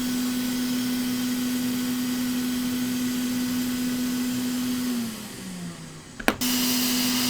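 Heat gun running with a steady fan hum and air hiss. About five seconds in it is switched off and the hum falls in pitch as the fan spins down; a second or so later a click, and it runs steadily again.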